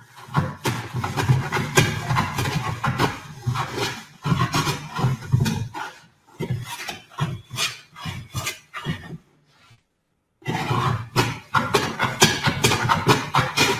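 Metal-bodied No. 7 jointer hand plane taking a series of strokes along the face of a wooden board, its iron just lowered for a deeper cut, the sole rubbing and the blade slicing shavings on each pass. There is a short break about ten seconds in before the strokes resume.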